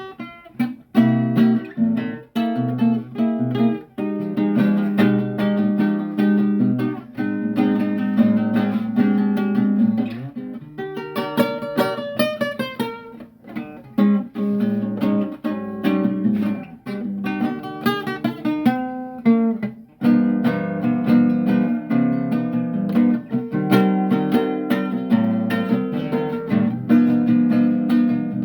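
Acoustic guitar played freely, mixing strummed chords with plucked single notes, including a quick run of single notes in the middle and a short lull before the strumming picks up again.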